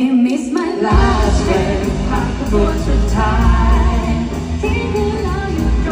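Live pop singing through a concert PA: a singer's wavering voice, joined about a second in by the full band with a heavy bass.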